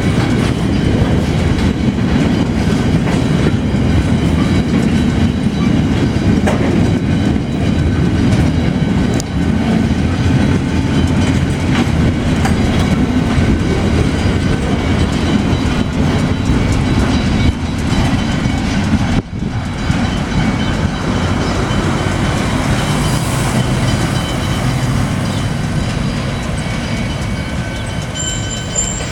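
Pacific National freight train's wagons rolling past on steel wheels, a loud steady rumble that eases slightly near the end.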